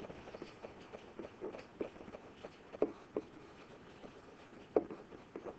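Faint, scattered taps and light knocks of a stylus on a pen-input screen during handwriting, about seven in a few seconds, over a quiet room hiss.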